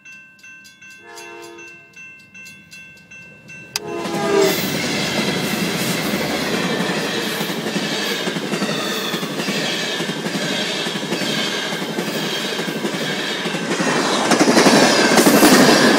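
Level-crossing warning bell ringing in a rapid even rhythm, with a short train horn blast about a second in. About four seconds in, the horn sounds again and an Amtrak bilevel passenger train arrives and passes close by: a loud, steady rumble with wheel clatter that grows louder near the end.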